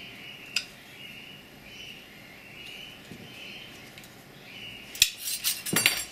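Faint, repeated scratchy strokes of a felt-tip marker on the biscuit joiner's aluminium fence. About five seconds in comes a sharp click, then a burst of clinking and clattering as light metal parts are handled and set down on the wooden workbench.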